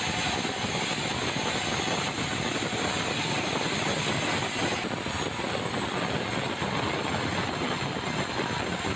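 Sawmill machinery running steadily, a dense mechanical noise of saw and engine, with an abrupt change in its character about five seconds in.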